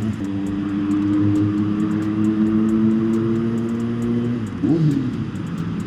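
Kawasaki Z900 inline-four motorcycle engine holding a steady note at highway cruising speed, with wind and road noise. The steady note breaks off about four seconds in.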